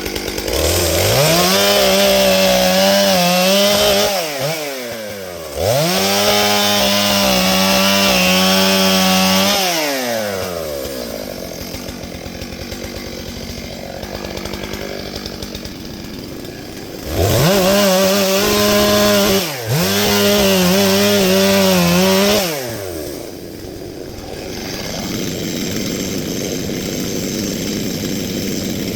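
Stihl MS 661 large two-stroke chainsaw cutting fallen oak, run at full throttle in four bursts of a few seconds each. Between the bursts it drops back to a lower, rougher idle, with a long idle stretch in the middle and at the end.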